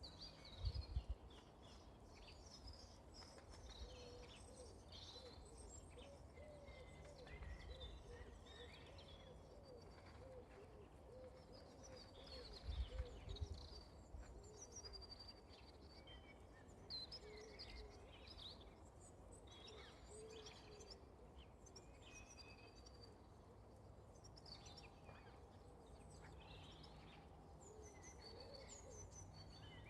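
Faint chirps and calls of several small birds scattered throughout, with a couple of brief low thumps, one about a second in and another around thirteen seconds in.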